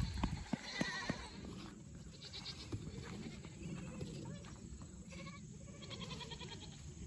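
Goats bleating faintly in the background, several short calls, with a few knocks near the start.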